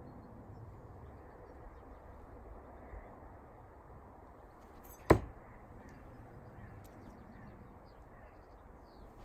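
A Ward Wright throwing knife, thrown military half spin, strikes the target once with a sharp, loud thunk about five seconds in, over a steady low background hiss.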